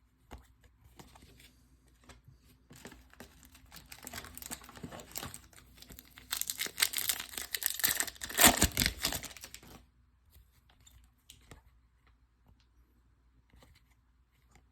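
Trading-card pack wrapper being torn open and crinkled, building from about three seconds in, loudest in the middle, and stopping suddenly about ten seconds in.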